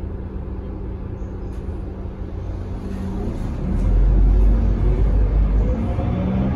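Mercedes-Benz OC500LE bus's 12-litre turbocharged CNG six-cylinder engine and drivetrain, heard from inside the passenger cabin. A steady low rumble grows louder about four seconds in, with a rising whine as the bus picks up speed.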